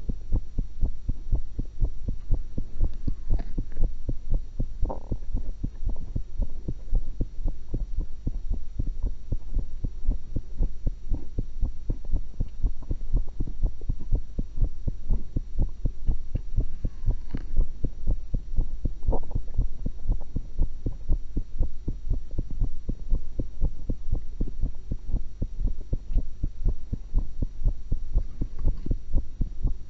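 A woman's heartbeat heard through a stethoscope: a steady, even run of low lub-dub thumps over a low rumble. A few brief, fainter higher sounds come in a few seconds in, again around the middle, and near the end.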